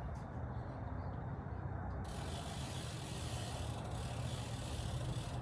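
A ratchet mechanism clicking rapidly in a dense run, starting abruptly about two seconds in, while work begins on loosening the bicycle's over-tight chain at the rear wheel. A steady low hum sits underneath.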